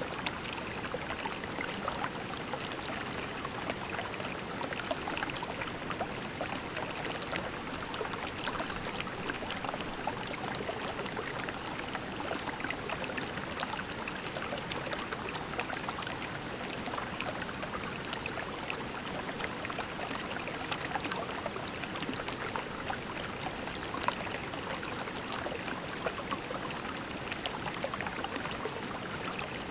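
Shallow creek water flowing and trickling over pebbles, a steady babble with many small splashes and gurgles.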